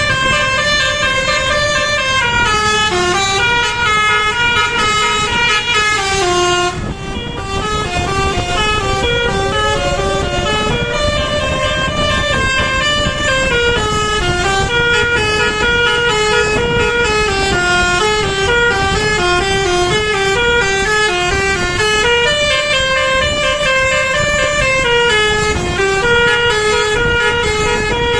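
Basuri 'telolet' musical bus horn playing a melody of stepped notes that repeats, with a short break about seven seconds in, over the rumble of the bus.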